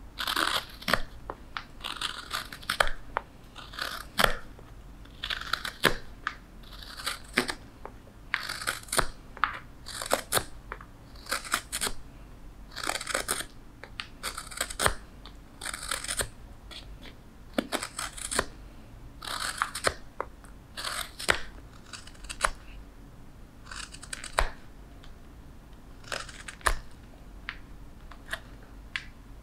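Hook knife (spoon knife) carving out the bowl of a wooden spoon: short scraping cuts, roughly one a second, each shaving off a curl of wood with a sharp click at the end of the stroke.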